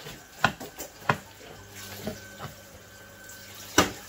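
Kitchenware being handled: about five sharp knocks and clicks, the loudest near the end, over a faint steady hum.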